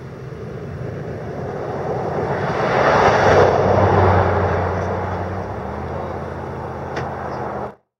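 A car passing close on the highway: engine and tyre noise swell to a peak about three seconds in and then ease off, with a steady low engine hum under it. There is a sharp click about seven seconds in, and the sound cuts off abruptly just before the end.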